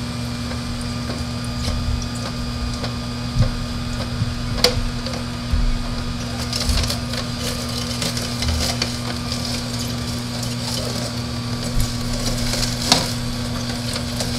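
Philips masticating slow juicer running with a steady motor hum as its auger crushes celery stalks, giving a crackling, snapping crunch with a few sharp cracks.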